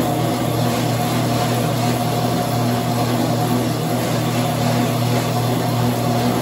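Motorized treadmill running with a steady hum.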